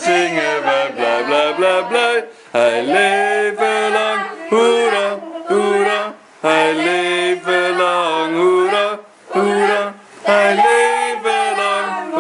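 A small group of men's and women's voices singing a song without instruments, in held phrases with short breaks between them.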